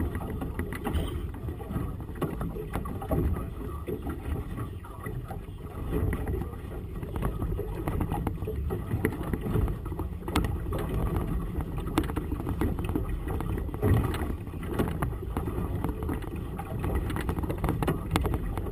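Wind buffeting the microphone over choppy water slapping against a boat's hull: a steady low rumble with scattered small knocks.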